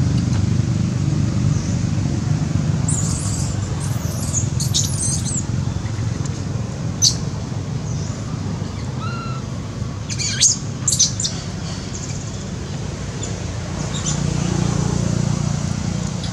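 Birds chirping in a few short, high clusters, the sharpest about a third and two-thirds of the way through, over a steady low rumble.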